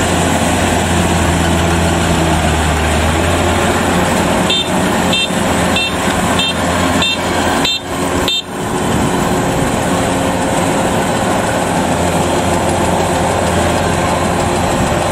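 Kubota DC93 combine harvester's diesel engine running steadily under load while cutting rice. Near the middle an electronic beeper sounds seven short high beeps, about 0.6 s apart.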